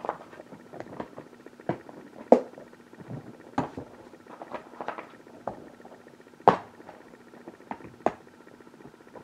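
Irregular plastic clicks and knocks of DVD keep cases being handled by hand, with two louder snaps about two and a half and six and a half seconds in.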